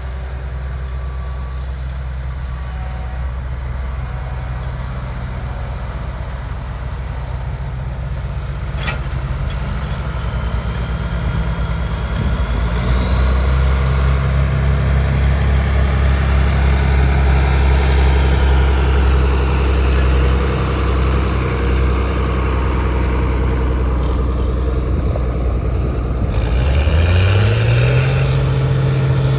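Vehicle engine running steadily, growing louder partway through, then rising in pitch near the end as it speeds up.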